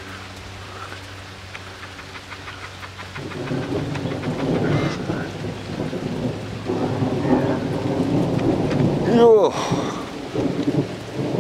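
Steady rain with thunder rumbling in about three seconds in, growing louder and peaking near nine seconds in. A brief falling whine sounds at the loudest moment.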